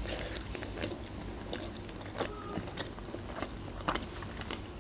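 A person chewing a mouthful of manti dumplings close to the microphone: irregular soft mouth clicks and smacks.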